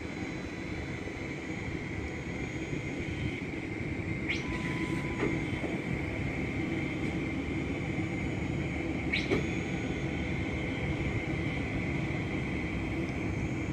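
Steady airport ground noise: a low rumble under a constant high whine, with a few brief rising chirps about four and nine seconds in.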